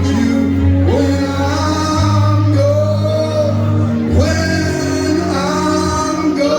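A song with a man singing over a backing band.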